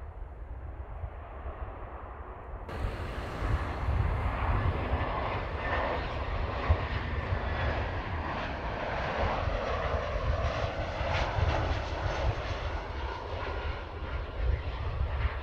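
Airbus A320 jet airliner on final approach, its engines making a steady rushing noise that grows louder about four seconds in, with a thin whine near the end. The first few seconds hold a fainter, duller rumble that stops at a cut.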